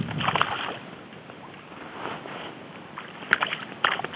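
Water splashing in the shallows as a large bream is drawn out onto the bank, with a few sharp knocks near the end.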